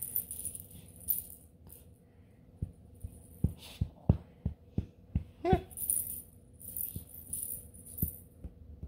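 Black and Tan Coonhound puppy chewing and mouthing a plush toy: irregular soft knocks and clicks, with one brief rising squeak about five and a half seconds in.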